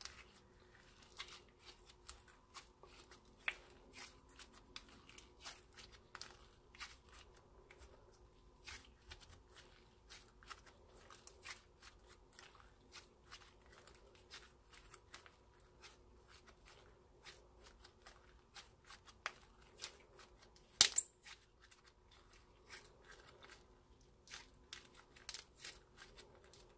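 Clear slime being kneaded, stretched and folded by hand with glitter and makeup mixed in, giving a steady run of small sticky clicks and pops. One pop about two-thirds of the way through is much louder than the rest.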